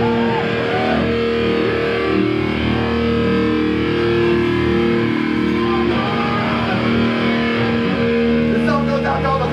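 Live rock band playing loud, distorted electric guitar with long held notes. A shouted voice comes in near the end.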